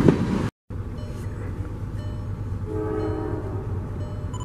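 Loud train rumble that cuts off abruptly about half a second in, then a quieter steady rumble of a CSX freight train with the locomotive's multi-note air horn sounding one short blast of about a second past the middle.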